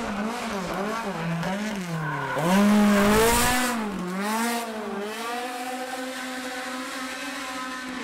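Ford Escort hillclimb car's engine revving hard through a hairpin, the revs rising and dropping several times as the throttle is worked. It is loudest as the car passes about three seconds in, then settles to a steadier note.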